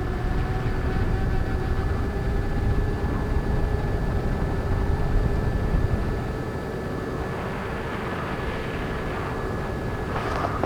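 Wind buffeting the microphone, a rough rushing rumble that eases off slightly about six seconds in, over a faint steady electronic hum.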